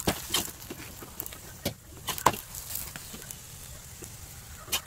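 Metal spatula knocking and scraping against a tawa griddle while a paratha is flipped and pressed: a few scattered sharp clicks, the loudest a little over two seconds in.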